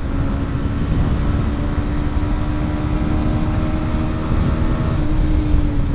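Small single-cylinder two-wheeler engine running at a steady speed on the move, a steady hum over road and wind rumble, inside a road tunnel. Its pitch dips slightly about five seconds in.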